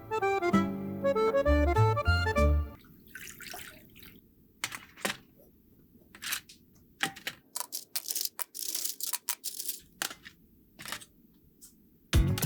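Accordion-led background music that stops a few seconds in, leaving small sharp clicks and taps of hands working on a diecast model car, with a few short bursts of hiss; the music comes back at the very end.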